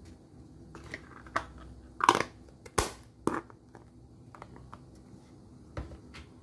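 Plastic pudding cups with snap-on lids being handled and set down: a handful of sharp plastic clicks and crinkles, the loudest between about two and three and a half seconds in.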